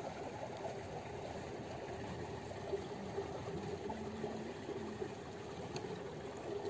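Steady outdoor background noise with a faint, even hum underneath and no distinct event.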